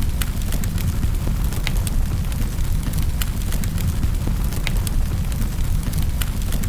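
Wood fire crackling in a fireplace: irregular sharp pops and snaps, several a second, over a steady low rumble of flames.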